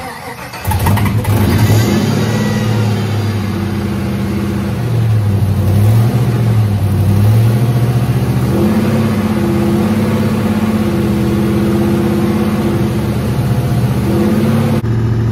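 A freshly rebuilt GM L99/LS3 6.2-litre all-aluminium V8 cranks briefly and catches under a second in. It flares up, then settles into a steady idle whose speed rises and falls slightly.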